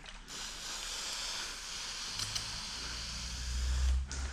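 Squeegee dragging across wet paint protection film on a truck hood, a steady hiss lasting about four seconds, with a low rumble near the end.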